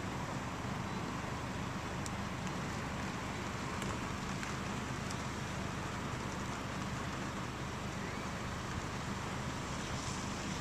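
Steady noise of wind and rain from a severe thunderstorm, with a few faint ticks.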